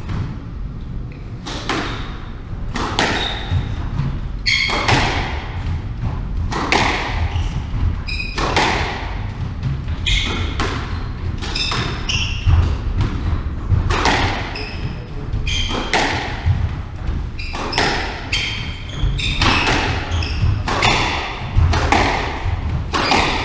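Squash rally: the ball cracking off rackets and walls about every second or two, each hit ringing briefly in the court, with short high squeaks of shoes on the wooden floor between hits.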